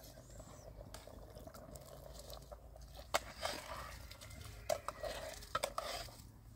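Metal cooking pots and a ladle knocking together, with several sharp clanks from about three seconds in.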